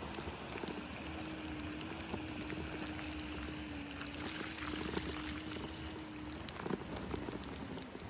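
Steady rushing of a creek running high with rain and snowmelt runoff, heard as an even noise. Scattered sharp taps run through it, and a faint steady hum comes in about a second in and fades near the end.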